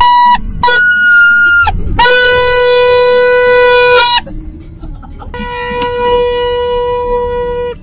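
Red plastic trumpet horn blown hard inside a car: a short toot, then a higher-pitched blast of about a second, then two long, steady blasts of about two seconds each on a lower note.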